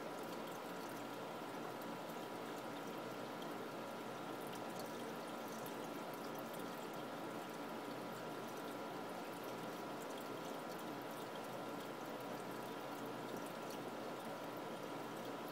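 Aquarium filter running: a steady trickle and bubbling of water, with a faint steady tone under it.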